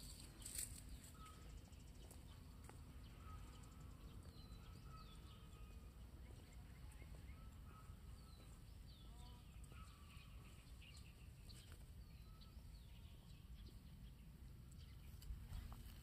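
Near silence outdoors: faint, scattered bird chirps over a low steady rumble, with a brief knock about half a second in and another near the end.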